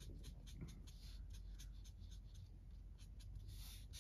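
Black marker drawing on sketchbook paper: a faint run of quick, short strokes, about three or four a second.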